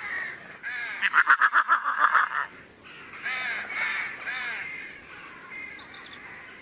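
Harsh animal calls: a fast, loud run of them about a second in, then several separate calls.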